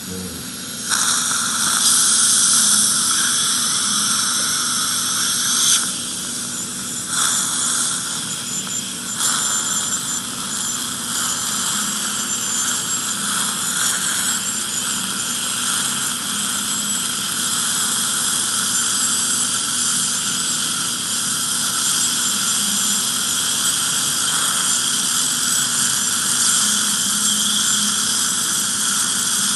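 Ultrasonic dental scaler with a Scorpion i-CLiP PEEK plastic implant insert working on titanium implant abutments: a steady high-pitched whine with a hiss of water spray and saliva suction, dipping briefly a few times between about six and nine seconds in.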